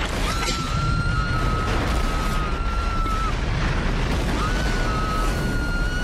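A shrill, high scream held at one steady pitch, breaking off about three seconds in and starting again a second later, over loud, rough noise.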